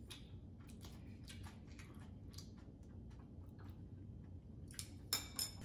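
Faint clicks of chopsticks and utensils against dishes, with a few sharper, ringing clinks of tableware about five seconds in.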